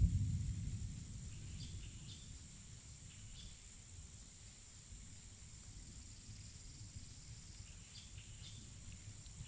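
Forest background of a steady high insect drone with a few brief bird chirps scattered through it. A low rumble fades out over the first second or two.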